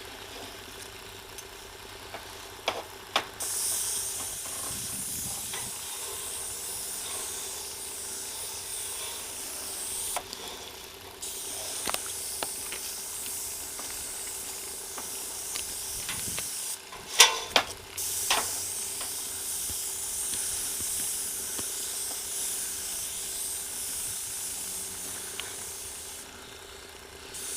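Airless sprayer spraying sealer coating onto asphalt shingles through a low-pressure 515 tip: a high hiss in three long passes with short breaks between them. A few sharp knocks come about two-thirds of the way through.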